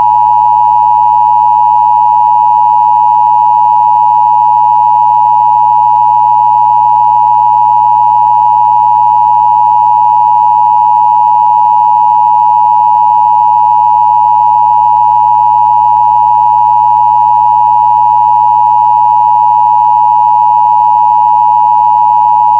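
Emergency Broadcast System two-tone attention signal: a loud, steady electronic tone held unbroken, the alert that opens a broadcast emergency test.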